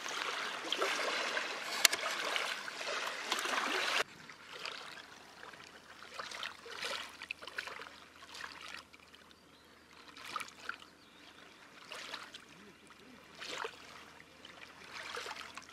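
Small waves lapping and trickling at a river shoreline. About four seconds in the sound drops abruptly to quieter, intermittent lapping.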